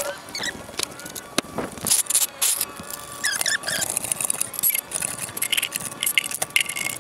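Hydraulic floor jack being set under the car and worked by its handle: a run of metal clicks, clinks and knocks.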